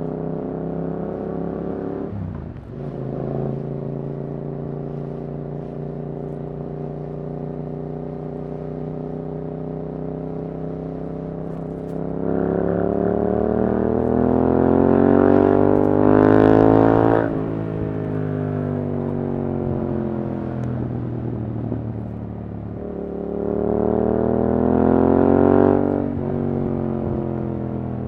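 Yamaha R7's parallel-twin engine through an Akrapovič exhaust, running steadily on the move, then twice revving up under acceleration with the pitch climbing for a few seconds before the throttle closes and it drops away.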